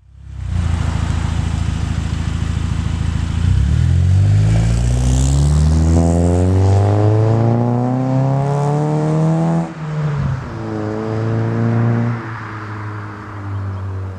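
2008 Honda Accord coupe's 2.4-litre four-cylinder exhaust, through a Magnaflow muffler with the resonator deleted, under acceleration. After a few seconds of steady drone the note climbs steadily for about six seconds, drops suddenly at a gear change, climbs again briefly, then settles to a steadier drone near the end.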